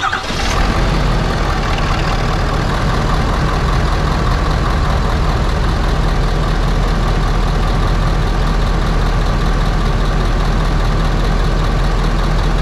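Ford 6.7 L Power Stroke V8 turbodiesel idling steadily, heard from in front of the open hood, on its first run after an oil change. The sound comes in abruptly right at the start and then holds an even, unchanging idle.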